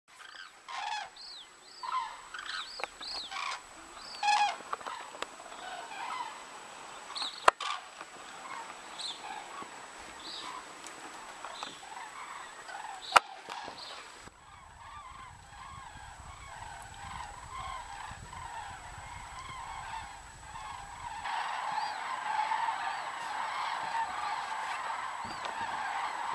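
A flock of common cranes calling in flight, with single rising-and-falling calls at first, then a dense chorus of many birds calling at once from about 21 seconds in. Two sharp clicks, about 7 and 13 seconds in, are the loudest sounds.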